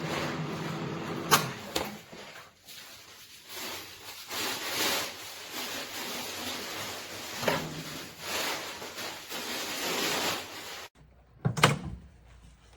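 Microwave oven humming steadily, stopping about two seconds in, followed by clicks and rustling handling noise, and a sharp clunk near the end of the kind a microwave door makes.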